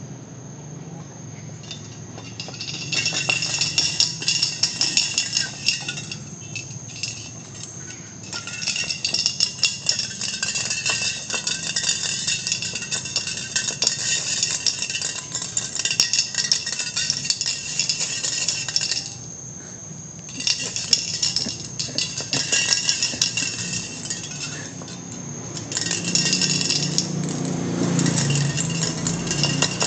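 Insects calling: a thin, steady high tone, with loud, dense buzzing choruses that start and stop several times.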